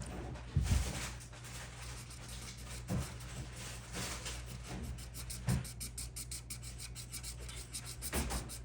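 A colouring pen scratching on paper in quick back-and-forth scribbling strokes, the strokes coming fastest in the second half. A few low thumps, about one every two and a half seconds, break through it.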